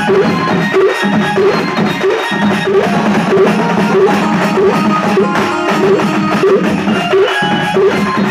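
Loud drum-driven folk dance music played through a DJ sound system, with a fast repeating drum pattern under sustained melody.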